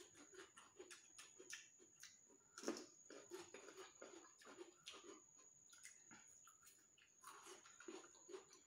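Faint eating sounds: noodles being chewed, with frequent small clicks and clinks of forks and spoons against a steel pot and bowls, and one louder knock about two and a half seconds in. A thin steady high whine runs underneath.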